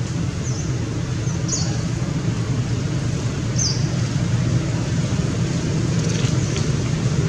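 Steady outdoor background noise, a low rumble under a hiss, with a few short, high, falling chirps about half a second, a second and a half, and three and a half seconds in.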